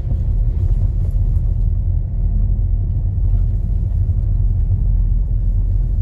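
Car driving along a narrow lane, heard from inside the cabin: a steady low rumble of engine and tyre noise.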